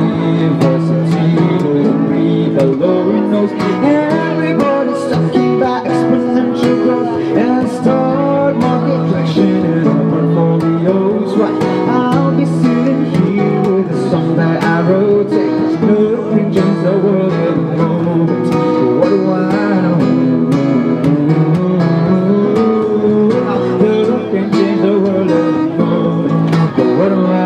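Acoustic guitar strummed steadily, with a man's voice singing over it through a microphone.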